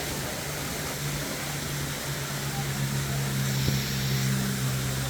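An engine running steadily with a low hum that grows a little louder about three seconds in, over a steady hiss.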